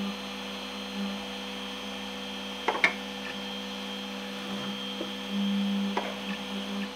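Steady electrical hum from an idle Robo 3D R1+ 3D printer. A sharp plastic knock about three seconds in and a softer one near six seconds come from the printed fan duct being handled on the bench.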